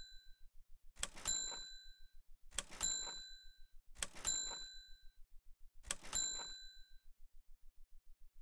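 Bell-like ding sound effect, heard four times about every one and a half seconds. Each is a quick double strike that rings out briefly.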